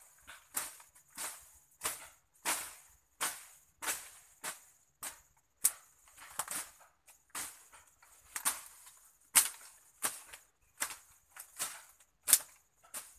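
Machete (a mandau) chopping and slashing through brush and undergrowth while clearing land, a steady run of sharp strokes about one and a half a second, each with a short rustling tail of leaves.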